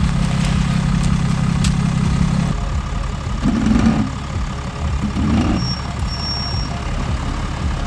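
A vehicle engine running with a steady low rumble; a low hum drops away about two and a half seconds in, and there are two brief louder surges a couple of seconds later.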